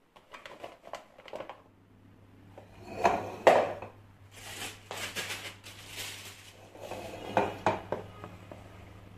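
Gherkins and other pickling vegetables being packed by hand into a glass jar: irregular knocks, clinks and rustles against the glass and kitchenware, loudest about three and a half seconds in.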